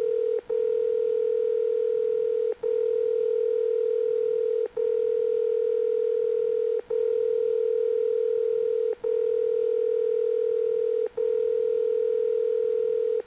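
Electronic telephone ring tone: one steady, even tone that breaks off for an instant about every two seconds and starts again.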